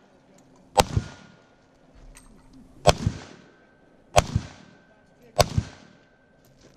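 Four single shots from a Century Arms C39 V2 AK-pattern rifle in 7.62×39mm, fired one at a time about one to two seconds apart, each loud crack followed at once by a quick echo.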